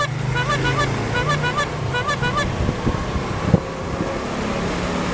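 Street traffic with motorcycle engines running, and a repeated high chirping about three times a second through the first half, then a few sharp clicks.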